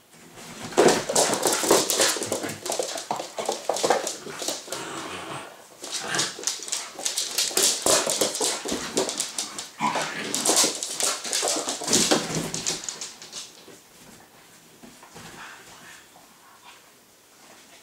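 A Staffordshire bull terrier puppy and a staffy-cross-husky puppy play-fighting, vocalising and scuffling in three long bouts with short breaks between them, dying down about thirteen seconds in.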